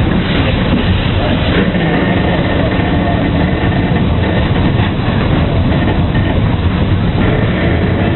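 Steam locomotive on the move, heard from on board beside its tender: a steady, loud mix of running and rail noise.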